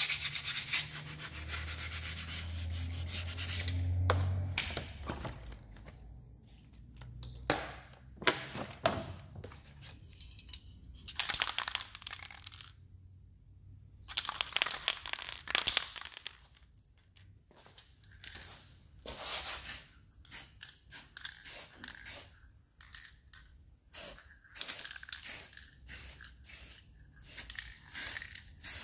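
Sandpaper rubbed by hand over a scooter's metal wheel rim: a continuous scraping for the first few seconds. After that come hisses from an aerosol spray-paint can, two longer ones in the middle and then a run of short sprays near the end.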